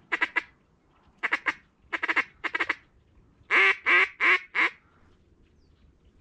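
Loud mallard-type quacking: short quacks in quick twos and threes, then four longer, louder quacks that stop about five seconds in.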